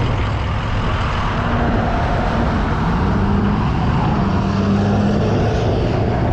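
2014 Yamaha R6 inline-four engine running at a steady cruise, its note drifting gently in pitch, under heavy wind noise on the helmet microphone.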